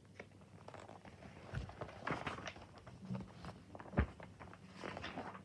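Paper pages of a coloring book rustling and flapping as they are turned and handled, with scattered knocks, the loudest a thump about four seconds in.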